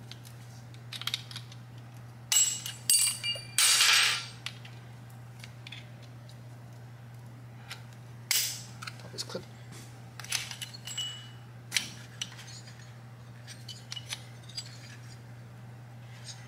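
Metallic clicking and clinking as a flathead screwdriver pries at the pushrod tube covers and their keepers on a Harley-Davidson Twin Cam engine. A dense run of sharp, briefly ringing clinks comes a couple of seconds in, then scattered lighter clicks, over a steady low hum.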